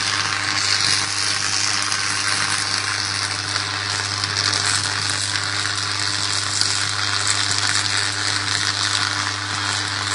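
Sustained electrical arc fault burning at the top of a power-line pole: a steady, loud sizzling hiss with a constant low electrical hum underneath.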